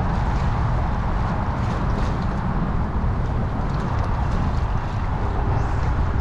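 Wind buffeting the microphone in a steady low rumble, over choppy water slapping against the side of a small boat.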